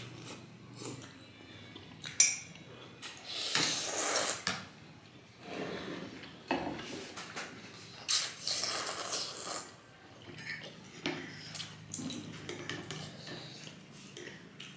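Noodles of thukpa soup being slurped, with forks and spoons clinking and scraping against ceramic bowls. Two longer slurps stand out, about four seconds in and about eight seconds in.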